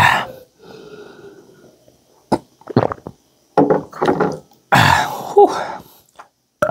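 A man eating noisily: irregular loud bursts of chewing and mouth sounds, with a short falling vocal grunt about five seconds in.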